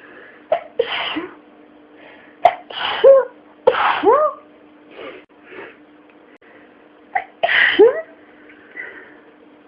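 A series of sneezes: four loud ones about one, three, four and seven and a half seconds in, with two softer ones in between. Each starts with a sharp catch and ends in a short rising vocal burst.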